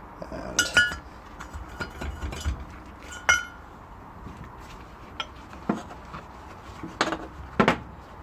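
Small metal engine parts clinking against each other and against a hard surface as they are handled and set down. There are a few short ringing clinks in the first half and duller knocks near the end.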